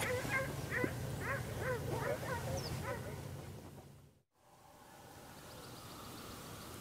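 Hunting hounds baying and yelping, about two or three short cries a second over a low steady rumble, fading out about four seconds in; a faint steady hiss follows.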